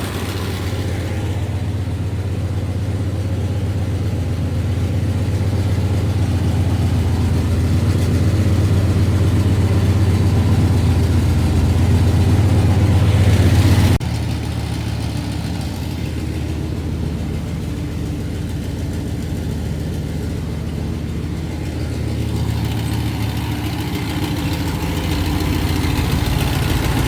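Dodge Magnum 5.9 (360) V8 idling steadily while warming up, with an exhaust noise from an open, unplugged exhaust outlet; apart from that exhaust noise the engine sounds healthy. The sound drops abruptly about halfway through, then carries on steadily.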